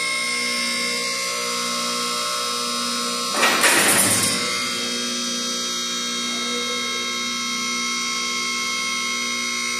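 Electric hydraulic power unit of a four-post car lift running steadily with a hum and whine as it raises the unloaded lift toward the top. About three and a half seconds in, a louder rushing noise lasts about a second.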